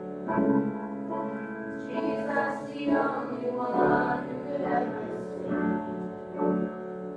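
A group of voices singing a hymn in slow, held notes.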